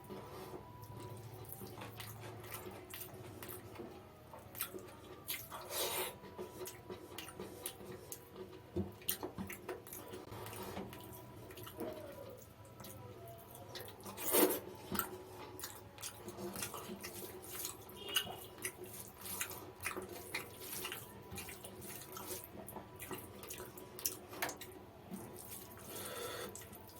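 Wet chewing and lip-smacking of someone eating mutton biryani with raita: a steady, irregular run of small wet clicks and squelches, with one louder smack about halfway through.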